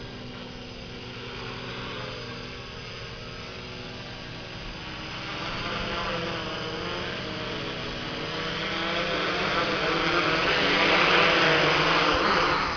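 V-tail quadcopter's electric motors and propellers whirring, the pitch wavering up and down with the throttle. It grows louder over the last few seconds and cuts off suddenly near the end as the motors stop on the ground.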